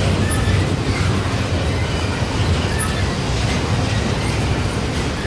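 Double-stack container train's loaded well cars rolling past close by: a steady, loud rumble of steel wheels on rail, with a few faint, brief high squeaks.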